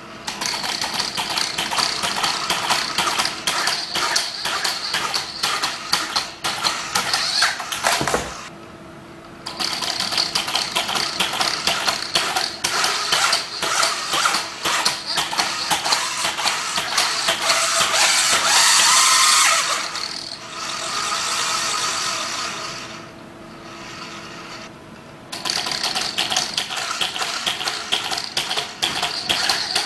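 Reaction-wheel-stabilised monopod hopping robot at work: a fast, continuous clatter of hops and mechanism clicks over a steady high motor whine. It briefly drops to a quieter hum twice, after about eight seconds and after about twenty-three seconds. Around eighteen seconds it gets louder, with a whine rising in pitch.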